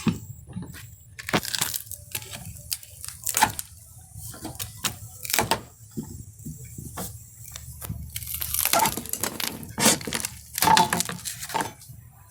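Teak deck planks being pried up off a boat deck: irregular sharp cracks, knocks and wood splintering, busier about eight seconds in.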